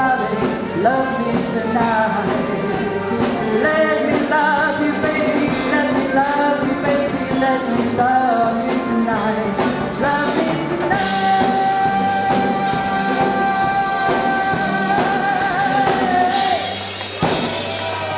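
A woman sings into a microphone, backed by a live band with a drum kit. About eleven seconds in she holds one long note for some five seconds. It wavers at the end and stops shortly before the band's sound drops back.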